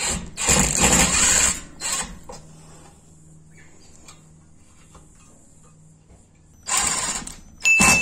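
Ryobi cordless impact driver running in short bursts as it drives screws through mounting clips into a steel ceiling batten: one long burst about half a second in, a short one near two seconds, and two more short bursts near the end. A steady high beep starts just before the end.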